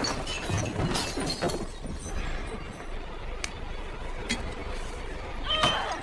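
Glass shattering and objects clattering in a struggle, in the first second and a half, followed by a few separate sharp knocks.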